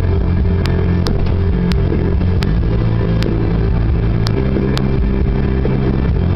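Car cabin noise while driving on the highway: a steady low engine and road drone, with scattered faint clicks.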